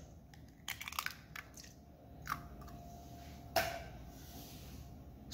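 A raw egg being cracked and its shell broken open over a stainless steel mixing bowl: a quick cluster of crunchy shell cracks about a second in, a few lighter clicks, and a sharper knock about three and a half seconds in.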